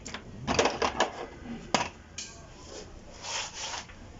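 Hand work on a wheel at a wheel-balancing machine: rubbing and scraping, broken by a few sharp clicks and knocks, the loudest about two seconds in.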